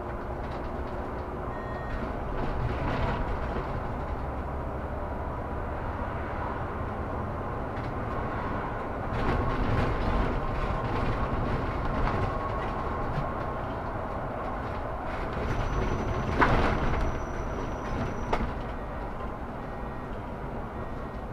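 Solaris Urbino 18 articulated city bus heard from inside while driving: a steady drone of drivetrain and road noise with a faint whine. About two-thirds of the way through, a short high tone sounds alongside a sharp knock.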